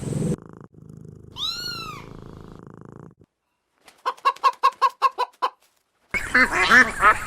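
A cat meows once, a single rising-then-falling call. After a short silence comes a quick run of about ten short, evenly spaced calls, then many birds calling over one another near the end.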